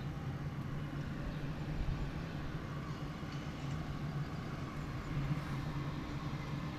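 A loud, low droning hum of unknown origin, heard from outdoors and taken for a strange noise in the sky. It holds a couple of steady low pitches over a rushing background and grows a little stronger about five seconds in.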